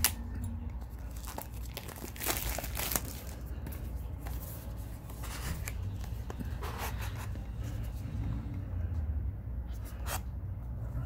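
Cardboard product box being slit open with a hobby knife and its inner tray slid out: scraping and tearing of card with a few louder stretches, and a sharp click at the start and another about ten seconds in.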